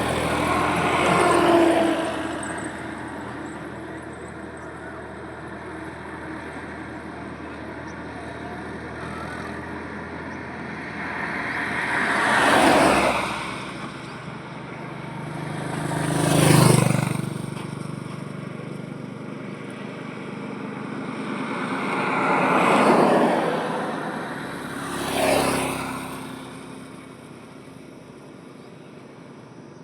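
Highway traffic: a steady rumble of road noise with vehicles passing one at a time, each swelling and fading away. There are about five pass-bys. The loudest comes a little past halfway and carries a deep engine note, like a heavy vehicle.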